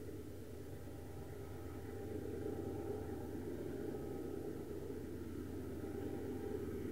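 Diesel-electric locomotives of two loaded coal trains working hard up a grade side by side, heard from a distance as a steady, low engine rumble. It grows a little louder about two seconds in.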